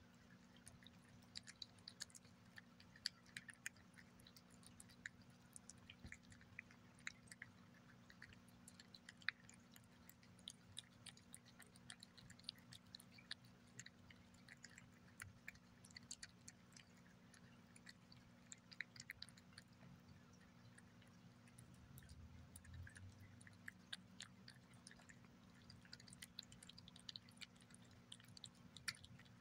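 Cat eating wet turkey pâté: quiet, irregular wet chewing and smacking clicks, several a second, over a faint steady hum.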